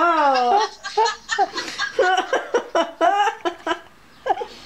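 People laughing at a joke's punchline, in short rapid bursts that ease off about four seconds in.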